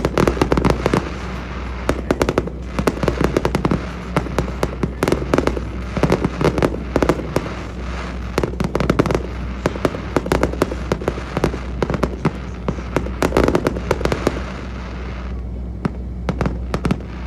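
Fireworks display: rapid volleys of aerial shell bangs and crackling that thin out about three seconds before the end, over a steady low drone.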